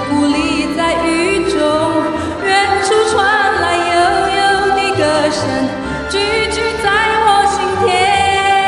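Slow ballad music with a female voice singing long held notes with vibrato and sliding pitch over a steady accompaniment.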